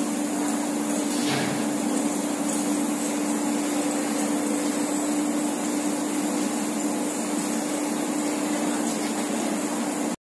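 Steady running noise of a big-bag filling and wrapping line: an even hiss with a steady low hum, with one brief sharper sound about a second in. It cuts off suddenly near the end.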